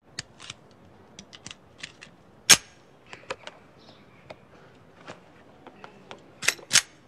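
A pistol and its leather holster being handled: scattered small metallic clicks and ticks. A sharp click comes about two and a half seconds in, and two more come close together near the end.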